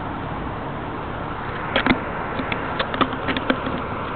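Steady noise from a bicycle ride, picked up by a camera-sunglasses microphone, with scattered sharp clicks and rattles, most of them bunched in the second half.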